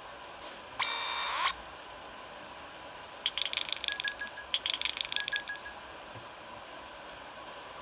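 Nokia N8-00 phone ringtone: a short held electronic tone about a second in, then two bursts of rapid high trilling beeps, each lasting about a second.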